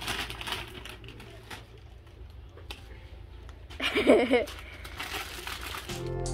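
Clear cellophane candy bags crinkling and rustling as they are handled. About four seconds in comes a short, loud vocal sound, and music begins near the end.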